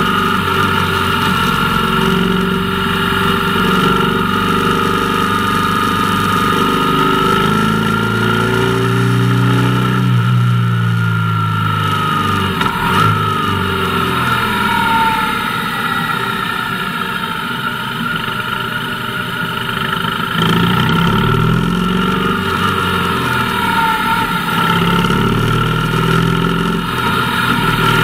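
Motorcycle engine running under way, its pitch rising and falling as the bike accelerates and eases off, with a lull partway through before it pulls again.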